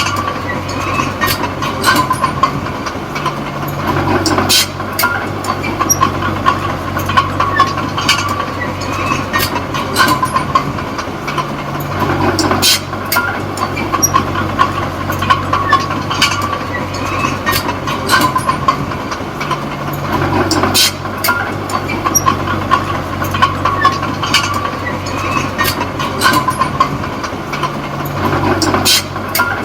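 D20P small crawler bulldozer working: its diesel engine runs under load, with its steel tracks clanking and squealing. The engine note shifts about every eight seconds, as the machine pushes and backs up in turn.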